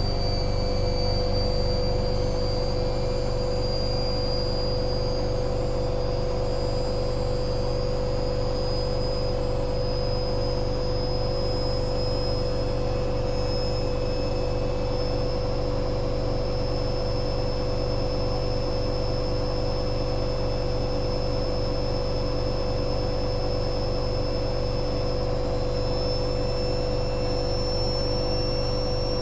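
Hoover Dynamic Next washing machine spinning at speed on a spin-only cycle: a steady motor and drum hum with a high whine that creeps slowly upward in pitch.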